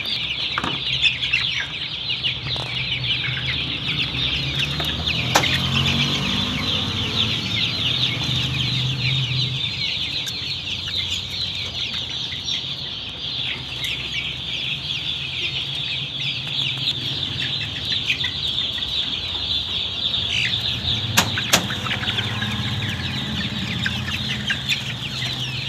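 A flock of young chicks, 10 to 20 days old, peeping constantly in a dense, high-pitched chorus. A low hum comes and goes beneath it, with a couple of sharp clicks.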